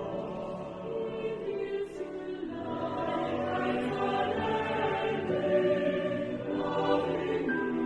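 A choir singing a slow church song in long held notes.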